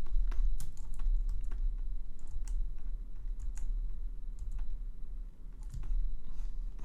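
Irregular clicks and taps of a computer keyboard and other desk input, over a low steady hum.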